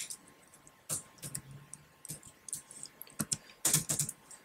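Keystrokes on a computer keyboard during typing: scattered single key clicks, then a quicker, louder run of several keys near the end.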